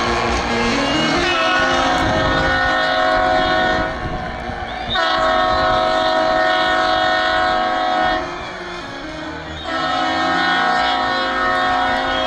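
Ballpark's train-style horn sounding a chord in three long blasts of about three seconds each, the home-run celebration signal, over a background of crowd noise.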